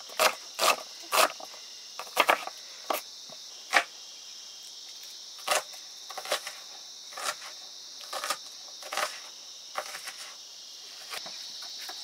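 Steady high chirring of crickets, with irregular sharp clicks and knocks over it.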